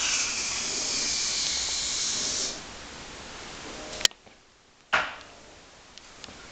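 A loud, high-pitched hiss lasting about two and a half seconds that cuts off suddenly, followed about four seconds in by a single sharp click and, a second later, another short sudden noise.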